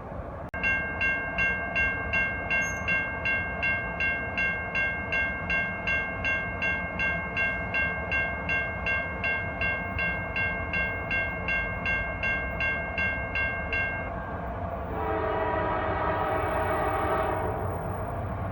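Railroad grade-crossing bell dinging about two and a half times a second, starting about half a second in and stopping around fourteen seconds. Near the end an approaching CSX freight locomotive sounds its horn in one blast of about two and a half seconds.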